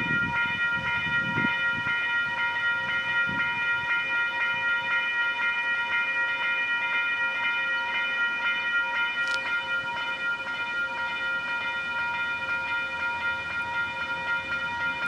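Level crossing warning bell ringing in a fast, even repeat, signalling an approaching train.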